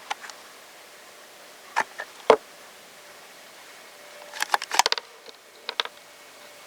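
Short-barrelled S&W M&P 15-22 rifle firing subsonic .22 LR rounds: sharp, fairly quiet cracks, the loudest about two seconds in. A quick run of metallic clicks follows in the second half.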